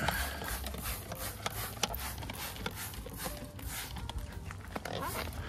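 Hand trigger spray bottle squirting all-purpose cleaner onto a car's bodywork, pulled again and again at about two squirts a second, each a short click and hiss of mist.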